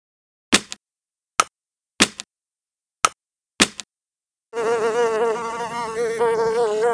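Five short, sharp snaps or hits spread over the first four seconds. From about four and a half seconds in comes a loud, continuous fly-like buzzing whose pitch wobbles quickly up and down.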